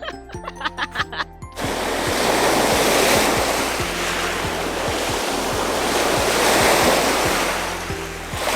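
Background music with a steady beat. About a second and a half in, a loud rushing noise joins it, swelling and easing, then falls away near the end.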